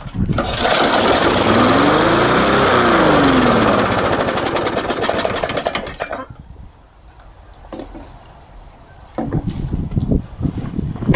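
Briggs & Stratton 3.75 HP lawn mower engine running loudly on straight paint thinner, revving up and back down once, then stopping abruptly about six seconds in. A few irregular knocks and clatter follow near the end.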